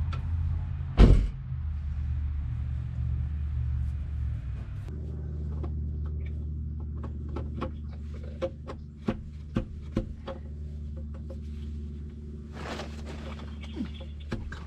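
Nissan VQ35 3.5-litre V6 idling, freshly started after a timing chain replacement, with its steady note changing about five seconds in. A loud thump about a second in, then irregular clicks and knocks from work in the engine bay.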